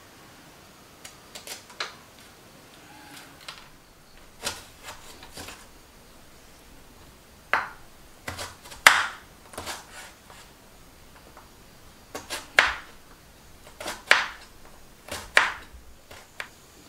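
Kitchen knife chopping peeled citron on a wooden cutting board: uneven sharp knocks of the blade striking the board, single or in quick twos and threes, with pauses between.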